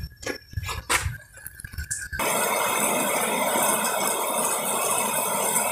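A few light clicks and clinks as fishing tackle is handled. About two seconds in, the sound cuts abruptly to a steady, even hiss.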